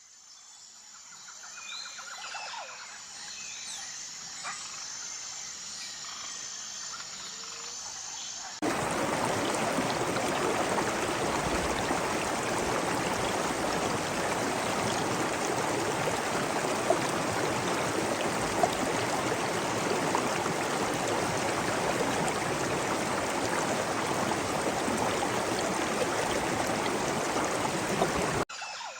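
Rainforest ambience fading in, with a faint high pulsing insect call and scattered bird chirps. About eight seconds in it cuts abruptly to a loud, steady rush of flowing water, which stops suddenly near the end.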